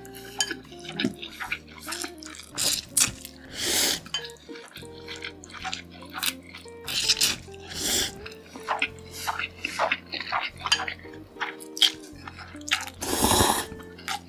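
A person eating chow mein noodles close to the microphone: wet chewing and smacking clicks, with several longer slurps, over background music with held notes.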